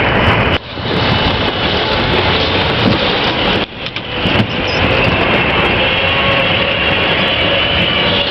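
Steady, loud road-and-motor noise of a small handlebar-steered vehicle under way, with a sudden brief drop about half a second in and another about three and a half seconds in.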